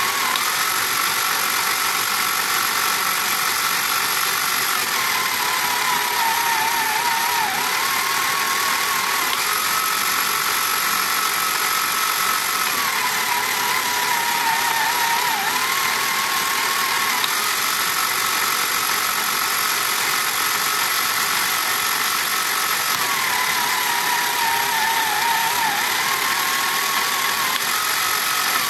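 The small electric motor and plastic gear train of a 1979 Tomy Hit and Missiles toy running steadily, newly fitted with a replacement motor. Its whine steps up and down in pitch again and again, about every six seconds.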